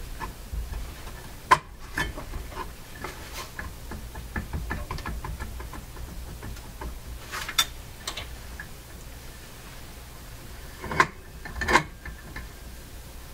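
Handling noise from the turntable platter of a Philco 48-1826 console's record changer being worked and lifted by hand: scattered small clicks, taps and scrapes, with a sharp knock about a second and a half in and two louder knocks near the end.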